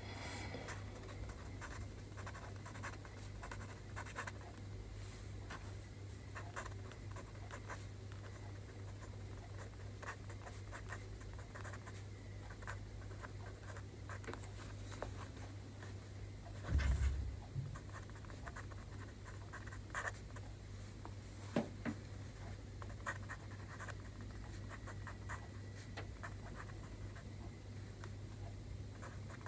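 Pen writing Chinese characters by hand on paper: a continual run of short scratchy strokes over a steady low hum. A dull low thump stands out about two-thirds of the way through.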